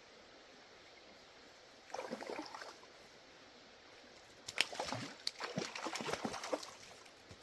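Water splashing in short bursts, once about two seconds in and again from about four and a half seconds almost to the end, as a hooked brook trout thrashes and is pulled from the stream.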